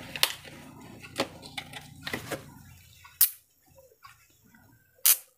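Plastic blister packaging being cut and crinkled with a small cutter, with a few light clicks. About three seconds in this stops, and two sharp clicks follow about two seconds apart as small black triangular magnets snap together.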